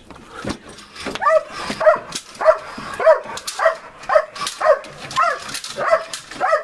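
A police dog on a chain barks repeatedly at a padded decoy in protection training. The barks are deep and come at about two a second, starting about a second in after some brief scuffling knocks.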